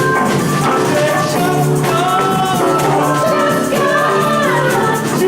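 Live band playing an upbeat song, with a voice singing over it.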